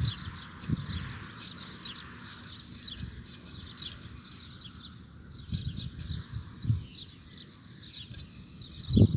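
Birds chirping at dawn: many short, quick chirps overlapping throughout, with a few soft low thuds now and then.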